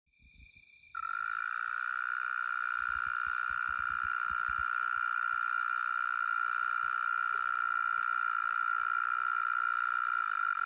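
Oriental mole cricket singing from its burrow in the ground: one steady, monotonous purring trill that starts about a second in and cuts off suddenly near the end.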